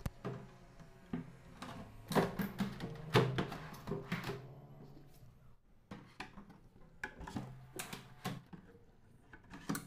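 Drawer boxes being fitted onto metal telescopic drawer channels and slid into a plywood cabinet: a series of sharp clicks and knocks from the slides engaging and the wood bumping, in two bunches with a short pause between.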